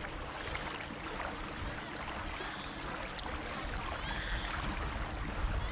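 Steady outdoor background noise of wind rumbling on the microphone and choppy lake water, with no distinct events.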